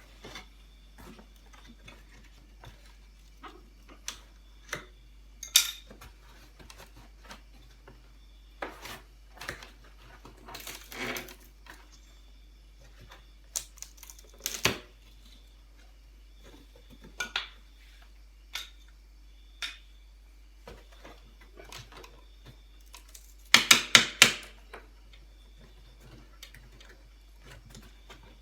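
Scattered sharp clicks and knocks as a wooden packing crate is worked open, with the loudest quick flurry of knocks near the end.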